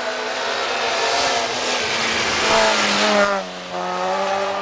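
Small Fiat hatchback rally car's engine revving hard under acceleration, its pitch climbing and then dropping suddenly a little over three seconds in before it pulls on again, over a hiss of tyres on the snowy road.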